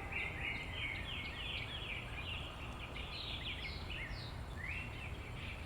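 Forest birds chirping: a fairly faint, continuous run of many short, high chirps, some sliding up and some down in pitch, over a low steady background hum of outdoor noise.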